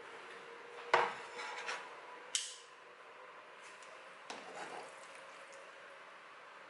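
A ceramic plate set down on a wooden tray with a sharp knock and short clatter about a second in, then a crisp high click and, a couple of seconds later, softer clinks of metal tongs working in a steel frying pan.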